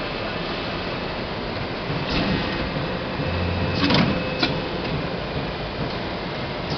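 A ceiling-panel production line running: steady machine noise with a few clanks from the press, the loudest about four seconds in, just after a short low hum.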